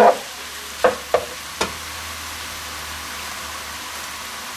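Bacon and mushrooms sizzling steadily in a frying pan, with three quick knocks of a spatula against the pan in the first two seconds.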